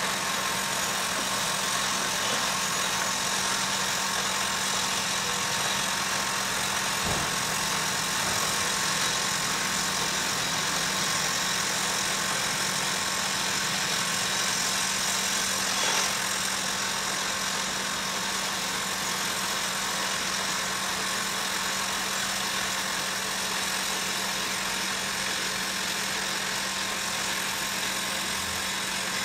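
Diesel engines of a Caterpillar 352 excavator and a Bell B30E articulated dump truck running steadily, with a constant hum.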